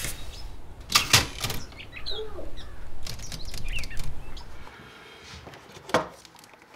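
Paper and a binder handled on a wooden desk: rustling, with a few sharp knocks about a second in and one more near the end. There are also a few faint chirps.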